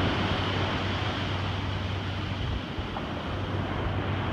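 Steady rush of ocean surf washing up a sandy beach, with wind on the microphone adding a low rumble.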